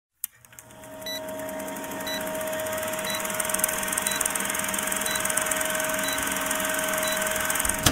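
Film-countdown sound effect: a film projector's steady whirr and hiss with a short beep about once a second, which cuts off abruptly near the end.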